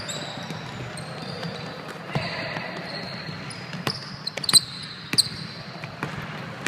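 Basketball game on a hardwood gym court: sneakers squeaking and a ball bouncing, with the sharpest squeaks and thuds about four and a half and five seconds in.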